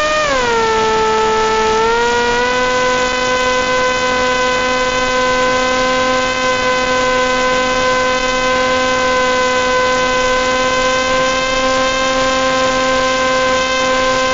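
Radio-controlled plane's motor and propeller whining steadily. The pitch dips sharply at the start and climbs back up about two seconds in, then holds, over a constant hiss.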